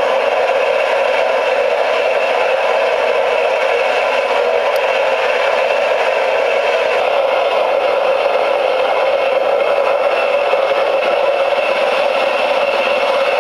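Small electric motor spinning the rotor of a scale model aircraft, running steadily with no change in speed.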